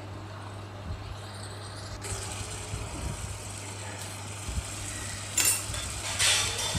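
A metal slotted spatula stirring and scraping thick frying onion masala in a metal kadhai, with a faint sizzle and a steady low hum underneath. Two louder scrapes of the spatula against the pan come near the end.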